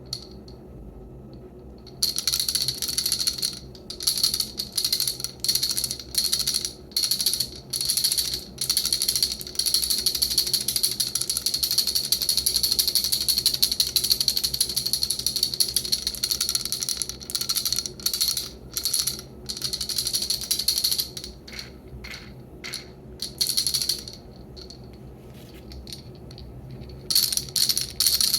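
Wooden baby rattle shaken by hand in short bouts of bright, high-pitched rattling, then shaken continuously for several seconds in the middle. The shaking stops about four seconds before the end and starts again just before the end.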